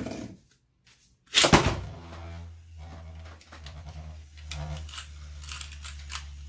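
A Metal Fight Beyblade, a Rapidity copy of Hades Kerbecs, launched from a light rip launcher into a plastic stadium: a short click, then about a second and a half in a loud sharp rip and clatter as the top is launched and lands, followed by a steady low whir as it spins in the centre of the stadium.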